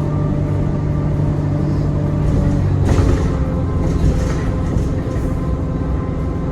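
ADL Enviro 400 E40D double-decker bus under way, heard from on board: a steady engine drone with a thin high-pitched turbo whine running over it. About three seconds in there is a brief knock and the engine note shifts.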